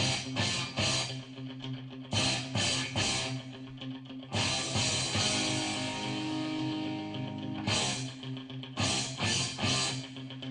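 Rock music with electric guitar and drum kit, played as intro music: rhythmic strummed chords and crashes with held low notes.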